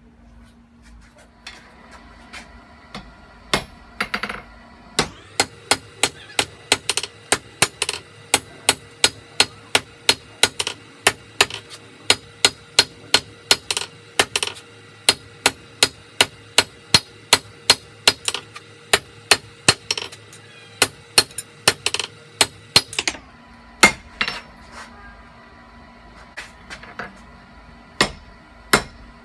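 Hand hammer forging red-hot leaf spring steel on an anvil to draw out a knife point: a steady run of strikes about two a second, each leaving a ringing note. A few scattered blows come first, and near the end the hammering pauses for a few seconds over a low steady hum before starting again.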